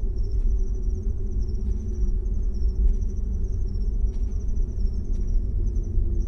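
Crickets chirping in a continuous high pulsing trill over a low, steady rumbling drone.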